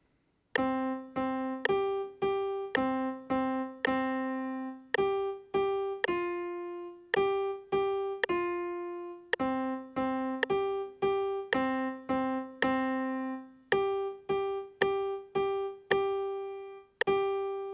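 Piano playing a simple beginner melody on three notes, C, F and G, in time with a steady metronome click at about two beats a second. Most notes are short repeated strikes, a few are held longer, and it ends on a long held note.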